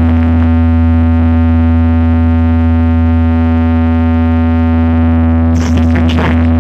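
Loud synthesizer drone from a DJ sound-check track: one steady bass-heavy tone with many overtones, held without a break. Near the end, short noisy swooshes sweep over it.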